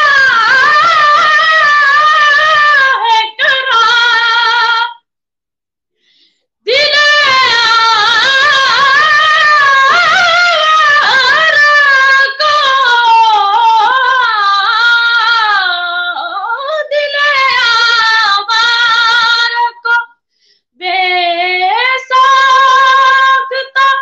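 A boy singing a naat unaccompanied in a high voice, with long held notes that waver and slide. He stops for breath about five seconds in and again near twenty seconds.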